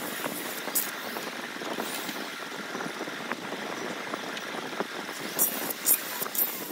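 A steady rushing background noise, with a quick run of short, sharp scratches near the end as a pointed metal scriber scrapes on the aluminium Yamaha RX135 cylinder.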